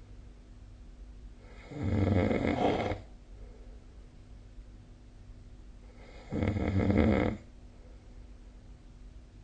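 A sleeping person snoring: two snores, each about a second and a half long, about four and a half seconds apart.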